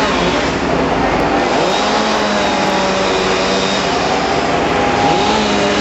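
Engine of tree-removal equipment running under load. Its pitch rises and then holds steady about two seconds in, and again near the end.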